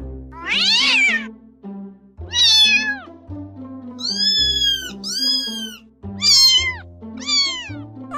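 A domestic cat meowing about six times in a row, separate calls mostly falling in pitch, with two longer arched meows in the middle, over background music.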